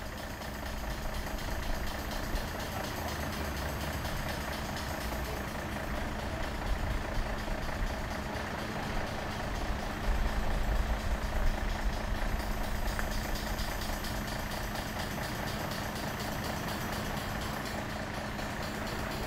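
Heavy truck's diesel engine running steadily, a low rumble with a constant hum. It swells a little about halfway through.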